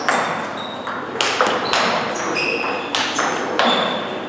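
Table tennis rally: the ball is struck by bats with fast rubber and bounces on the table, giving a string of sharp clicks, about one or two a second, many with a brief high ring. Forehand topspins are played against chopped returns.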